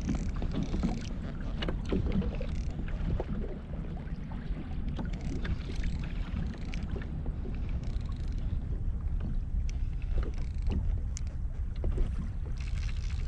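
Steady wind rumble buffeting the microphone on a kayak at sea, with scattered light clicks and ticks from handling the fishing rod and reel.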